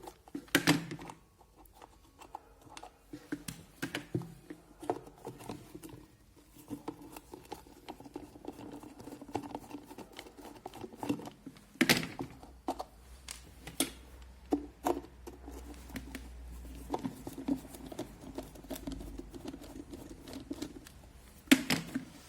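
Screws being undone from the plastic base of an electric kettle, with scattered clicks and light knocks of the screwdriver and plastic parts being handled, the loudest knock about halfway through.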